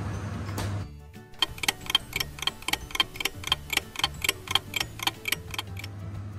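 Clock ticking sound effect, about four sharp ticks a second for roughly four seconds, marking a time skip. A low steady hum before it cuts off about a second in.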